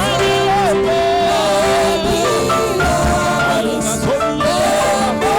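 Church worship music: a single voice sings a wavering melody over long held chords.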